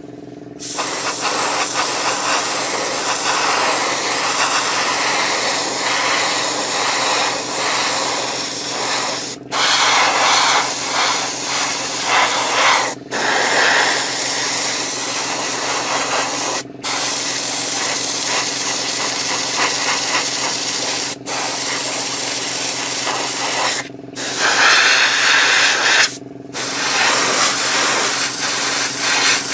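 Airbrush spraying paint onto a model in long passes, its air hiss starting about half a second in and stopping for a moment six times as the trigger is let off. A steady low hum runs underneath.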